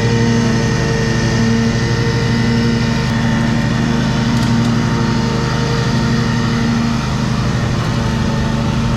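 Riding lawn mower's engine running steadily at full throttle with the cutting blades engaged, mowing grass, with a thin steady whine over the engine note.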